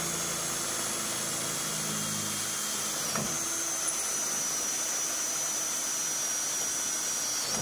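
Cordless drill running steadily with a high whine as it bores a starting hole through thin-wall aluminum square tubing, with a brief hitch about three seconds in.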